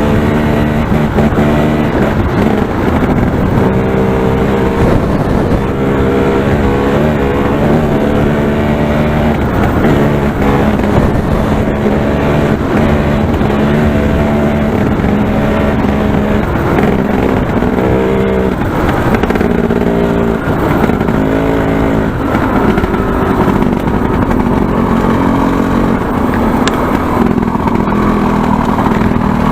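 KTM Freeride 250R two-stroke dirt-bike engine running hard at speed, its pitch holding and then stepping up and down over and over as it is revved and throttled.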